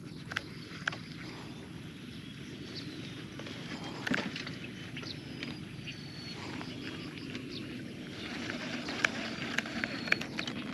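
Outdoor ambience: a steady low noise, with a few short high bird chirps and scattered light clicks and knocks. The knock about four seconds in is the loudest, and clicks cluster near the end.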